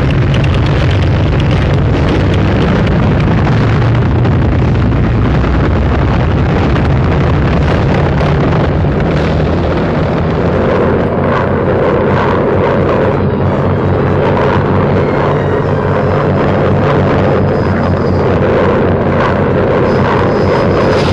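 Aircraft engines droning in a dense, continuous wall of noise on an old, hissy film soundtrack. About halfway through, the drone moves higher in pitch.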